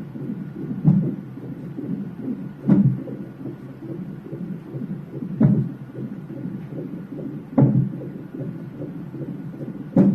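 A baby's fast heartbeat heard through a heart monitor, a quick steady pulsing broken by five louder thumps about two to three seconds apart: the baby hiccuping.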